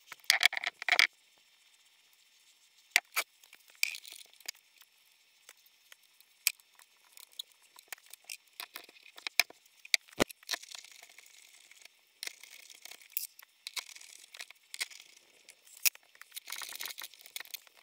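Workshop handling noises while a cylinder goes onto a Rotax two-stroke twin: scattered clicks and clinks of metal parts, one sharper knock about ten seconds in, and rustling of a paper shop towel near the end.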